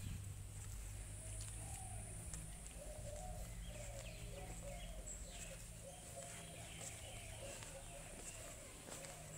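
Pigeons cooing in a run of repeated low phrases, with a few higher bird chirps, over a low steady rumble.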